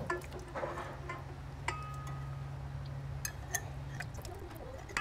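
Glass mason jar clinking and tapping against a stainless steel mixing bowl as cream is scraped out of it, with a short ring after one knock. A low steady hum runs underneath and stops about four seconds in.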